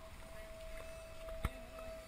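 Street ambience picked up on a handheld camera: a low rumble with a steady faint whine, one sharp knock about one and a half seconds in, and a brief voice near the end.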